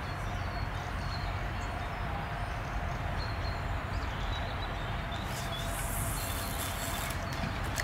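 Steady outdoor background noise: an even rushing hiss over a low rumble, with a brief faint high hiss about five to six seconds in.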